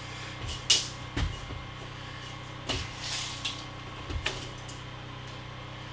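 A few sharp clicks and short rustles from handling a tool against a framed wall, the loudest click less than a second in, over a steady low hum.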